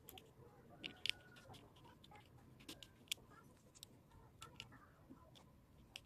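Faint, irregular small clicks and taps of fingers handling a small plastic washing-machine switch part, the loudest pair about a second in.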